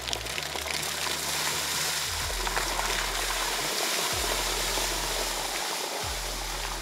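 Water splashing and rushing as a two-wheel-drive electric bike's fat low-pressure tyres drive through shallow river water. It is a steady spraying hiss that swells in the middle.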